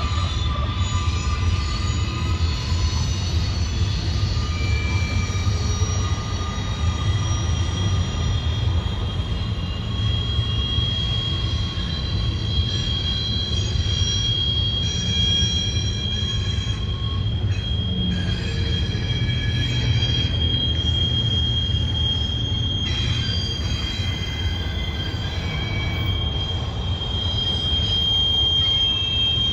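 Intermodal freight train with auto rack cars rolling by: a steady rumble of wheels on rail under a high, sustained wheel squeal.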